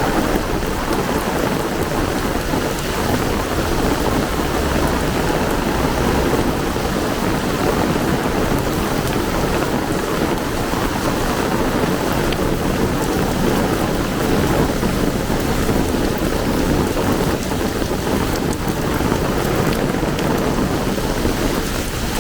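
Heavy rain pouring steadily, a dense, even hiss that does not let up.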